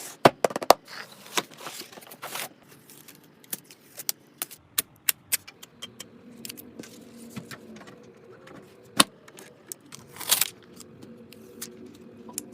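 Scattered sharp clicks and taps of hard plastic and metal computer parts being handled and fitted together, with a louder knock about nine seconds in and a short rattle about ten and a half seconds in.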